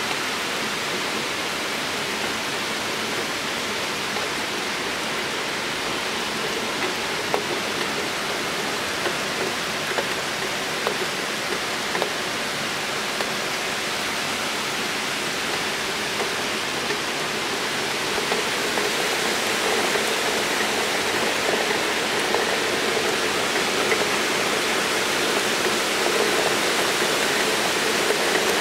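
Heavy rain pouring steadily, a dense even hiss with now and then a sharper tick. It grows a little louder about two-thirds of the way through.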